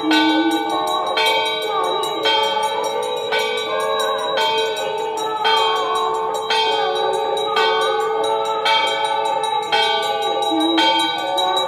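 Temple bell rung for the evening aarti. It is struck in a steady rhythm about once a second, and each stroke rings on into the next.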